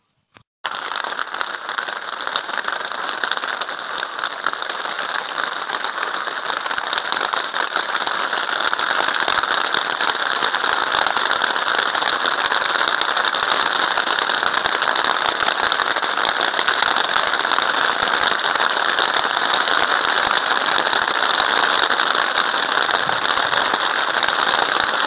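Heavy rain falling, a dense steady crackling hiss that starts suddenly and grows a little louder after several seconds.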